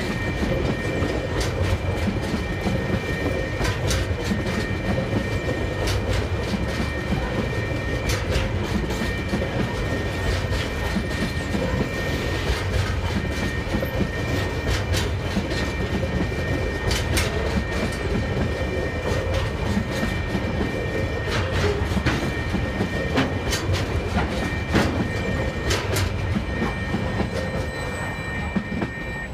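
Loaded container wagons of a freight train rolling past, their wheels clicking irregularly over the rails above a steady low rumble. A steady two-tone level crossing warning signal sounds throughout and cuts off at the very end as the last wagon clears.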